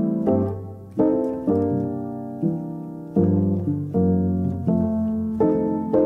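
Background music: slow solo piano, notes and chords struck at an unhurried pace and left to ring out.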